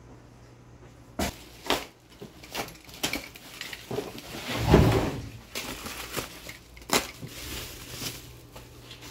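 Bubble wrap and plastic packaging rustling and crinkling as a black steel nerf bar bracket is unwrapped, with a few sharp knocks and one heavy thump about halfway through.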